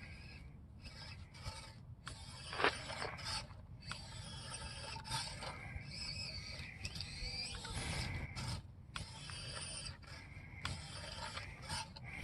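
Small-scale RC rock crawler's electric motor and drivetrain whining in short spurts that rise and fall in pitch and stop abruptly several times as the throttle is worked while it climbs.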